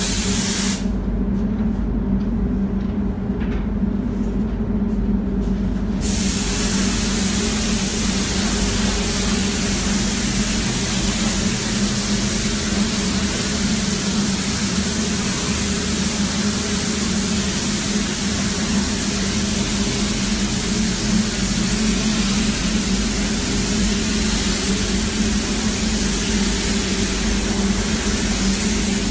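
Compressed-air paint spray gun hissing as it sprays. The spray breaks off about a second in and starts again a few seconds later, then runs steadily over a steady low hum.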